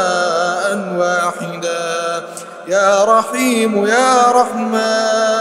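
A man chanting an Arabic supplication (dua) in a slow, melodic style, drawing out the word "wahidan" and then, after a brief pause, holding a long sung phrase that bends up and down.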